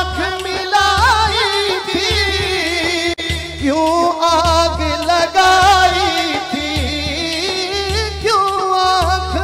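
Male naat singer singing long, wavering held notes into a microphone, over a deep pulsing beat.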